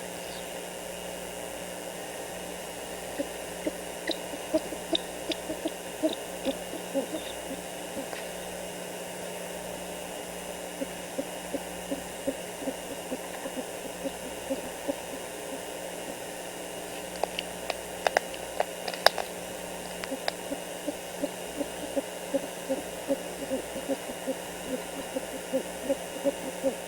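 Great horned owls at the nest during a feeding: a long run of short, low calls repeating about twice a second, with a few sharp snaps about two-thirds of the way in, over a steady hiss and hum from the nest camera's microphone.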